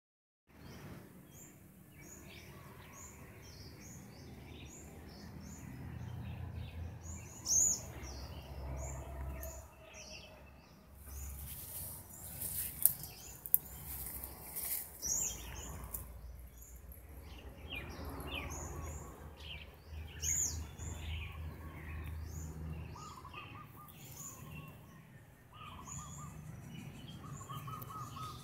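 Many birds chirping and calling in short, repeated notes over a low rumble, with a brief hiss and two sharp clicks around the middle.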